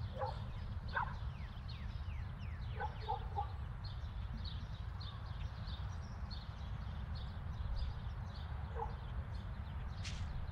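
Outdoor park ambience: small birds chirping in many quick, high, falling notes over a steady low rumble, with a few lower short calls scattered through and two brief hissy rustles near the end.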